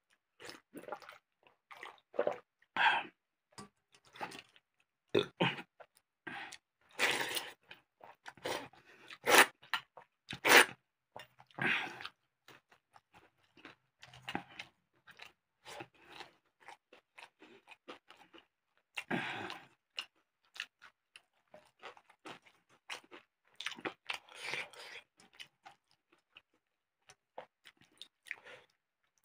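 Close-up mouth sounds of eating: irregular crunching bites and chewing of soaked rice with a crisp fried side dish. The loudest crunches come in a run about a third of the way in, then the chewing goes softer and sparser.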